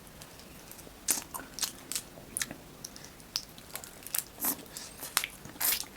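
Close-up crunching and cracking as someone bites and breaks the shell of a lightly fried crab: a string of about a dozen irregular, sharp crunches.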